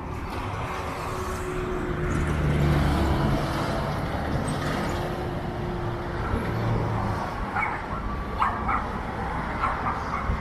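A vehicle engine and road traffic rumble steadily. About seven seconds in, a dog starts barking in short, sharp, repeated barks that carry on to the end.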